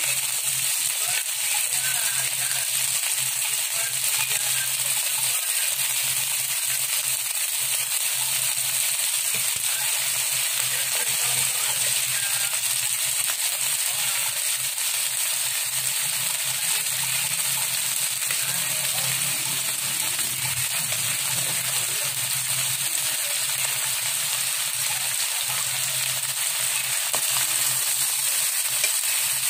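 Chicken necks sizzling steadily as they fry in a wok, stirred with a ladle at first.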